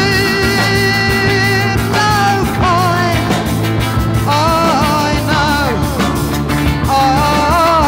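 Live rock band music: long held melody notes that waver and bend in pitch over a steady low bass line.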